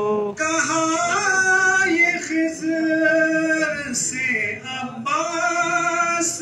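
A man sings an Urdu devotional poem in praise of Imam Husayn, a manqabat, holding long, wavering notes. The singing breaks briefly near the start and again about five seconds in.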